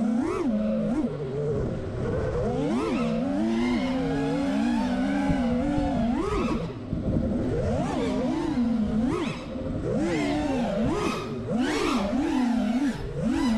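Four brushless motors of a 6S FPV quadcopter (iFlight XING2 2306 1755KV) whining as the pilot works the throttle. The pitch swoops up and down in quick punches and dips, over a rough rush of prop wash and wind.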